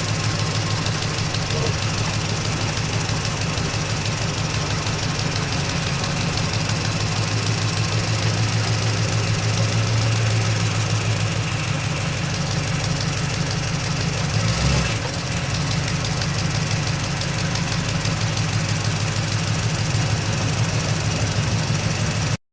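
Engine of a 1927 truck running steadily at idle with a fast, even chugging beat, a brief louder thump about three-quarters of the way through. The sound cuts off suddenly near the end.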